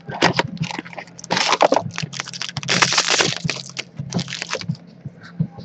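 Foil trading-card pack wrapper crinkling and tearing as a pack is ripped open, in irregular crackly bursts that die down to faint clicks of card handling near the end.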